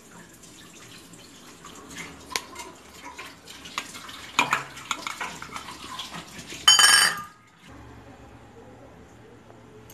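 Steel kitchen bowls and a mixer-grinder jar being handled: scattered clinks and knocks, with one brief loud, high-pitched burst about two-thirds of the way through.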